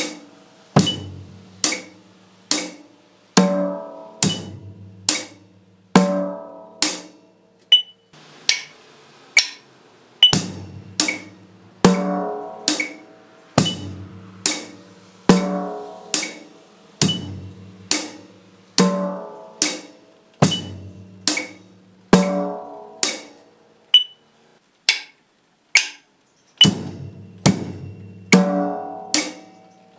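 Drum kit played in a slow, simple four-beat rhythm, with snare drum and bass drum strokes and cymbals, each stroke a little under a second apart. A faint click track ticks along, and there is a short break in the strokes near the end.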